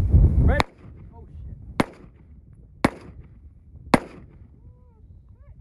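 AR-style semi-automatic rifle fired four single shots, about a second apart. Wind buffets the microphone until the first shot.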